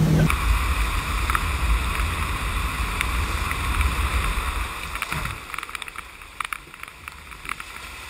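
Water rushing over the sheet of a FlowRider artificial-wave surf machine, with a low rumble underneath. A boat engine's drone cuts off just at the start. The rush drops in level about five seconds in, leaving fainter splashing and small clicks.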